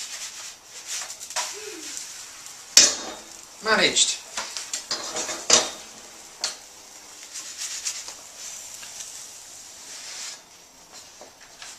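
A pancake tossed and caught in a frying pan on a gas hob: a few sharp knocks and clatters of the pan, the loudest a little under three seconds in, over the steady sizzle of the pancake frying in butter.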